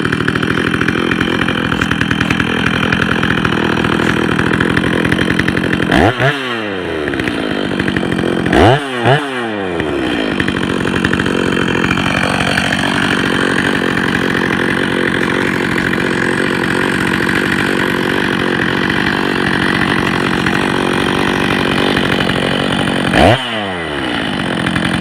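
Stihl 029 chainsaw's two-stroke engine, ported and with a modified muffler, running steadily. The throttle is blipped four times, around 6, 9 and 23 seconds in; each time the engine revs up sharply and the pitch falls quickly back down.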